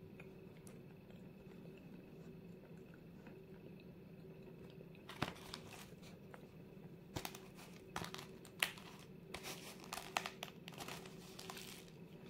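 Dry white edible clay (Vasilpolye 'zefirka') crunching and crackling in short, sharp bursts, starting about five seconds in and coming thickest in the second half.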